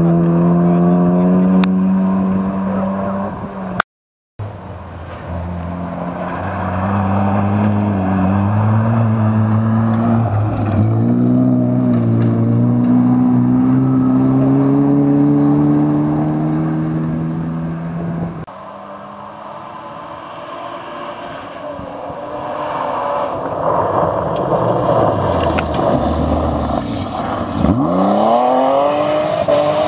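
Rally car engines on a gravel stage. One car accelerates away, its engine note climbing and dropping with each gear change as it fades, with a brief cut about four seconds in. Then another rally car approaches, its engine and gravel noise building until it passes close with a sharp drop in pitch near the end.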